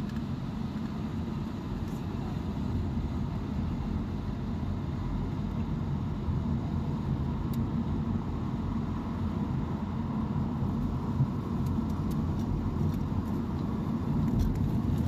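Steady low rumble of a road vehicle driving, with a few faint clicks in the last few seconds.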